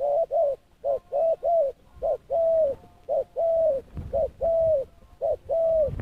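Spotted dove decoy cooing repeatedly: a few quick short coos, then several short-then-long coos with the long notes held and dropping slightly at the end.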